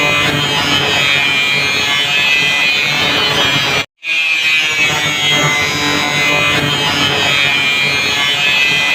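An electric grinder grinding and cutting, a steady harsh whine with grating noise. It cuts out for a split second about four seconds in and then starts again.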